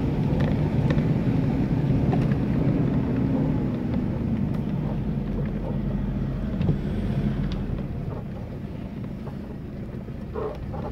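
Vehicle engine running steadily, heard from inside the cab while driving a rough dirt track, with scattered knocks and rattles from the bumps. The engine gets quieter about eight seconds in.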